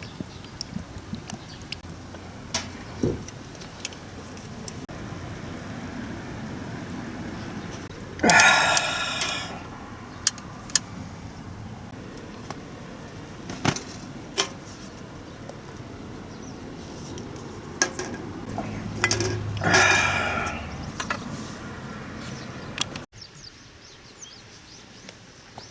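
Metal cookware and camping gear being handled: scattered clinks and knocks, with two louder, ringing metallic clatters, each about a second long, about 8 and 19 seconds in.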